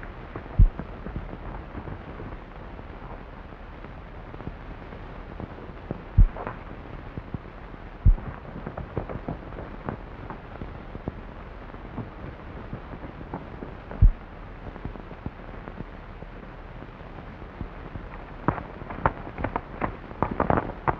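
Four single gunshots, several seconds apart, over the steady hiss and crackle of an early-1930s film soundtrack. Near the end a quick run of sharp clicks and cracks sets in.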